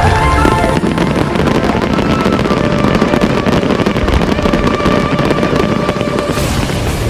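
Fireworks going off in a dense stream of rapid crackling pops, with a few louder bangs near the end.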